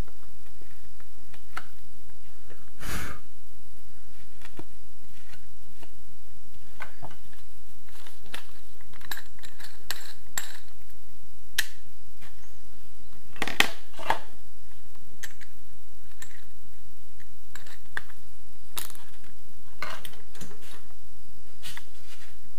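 Scattered clicks and knocks of hand tools, screws and a laminate panel being handled on a cluttered worktable, with a louder knock about three seconds in and two sharp knocks around the middle.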